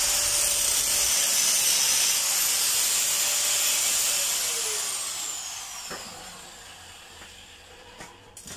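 A small motor whirring with a hiss, then slowing and fading away about halfway through, its whine falling in pitch as it winds down.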